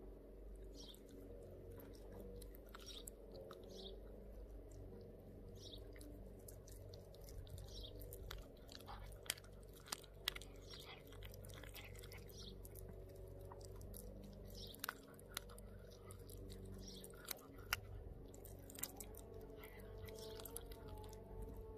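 Pomeranian chewing a raw duck foot, an irregular run of wet crunches as it gnaws, with a few sharper cracks from about nine seconds on.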